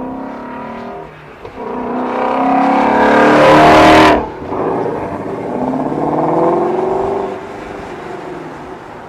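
V8 sports car engine idling and then revved twice through its exhaust. The first rev climbs to a loud peak and cuts off sharply about four seconds in. The second, smaller rev follows, and then it drops back to idle.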